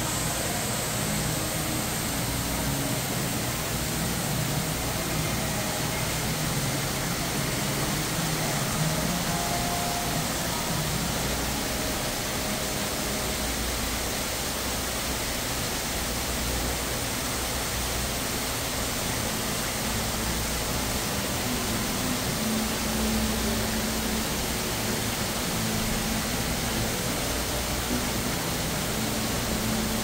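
Steady, even rushing of artificial waterfalls pouring into a large indoor aquarium tank.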